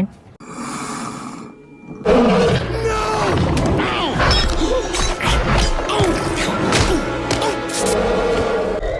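Animated-film soundtrack: dramatic orchestral score mixed with sudden hits and sound effects. It comes in loud about two seconds in, after a quieter hissing lead-in.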